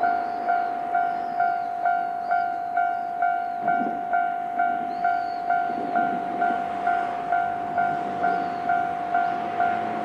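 Japanese railway level-crossing alarm ringing its standard electronic 'kan-kan' bell, an even pitched strike about two times a second, signalling that a train is approaching and the crossing is closed.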